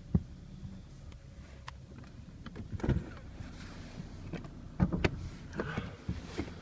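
Audi A4 B8 2.0 TFSI turbocharged four-cylinder petrol engine idling with a steady low hum, heard from the engine bay. Irregular sharp knocks and clicks sound over it, the loudest near the start and around three and five seconds in.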